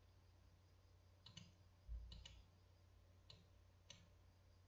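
Faint computer mouse clicks, about six of them, some in quick pairs, as text is selected in a document. A low, dull thud a little under two seconds in.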